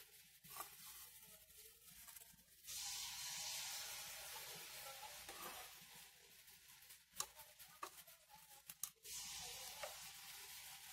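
Faint rustling with a few light clicks in the second half, from a wristwatch being handled and its strap fastened on a wrist.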